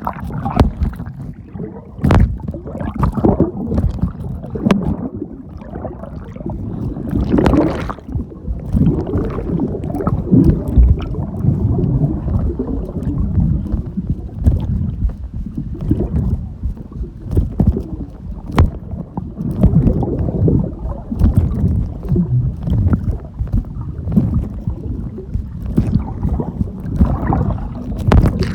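Sea water sloshing and churning against a phone's microphone as the phone is carried through the water by a swimmer. The sound is muffled and rumbling, with scattered sharp knocks.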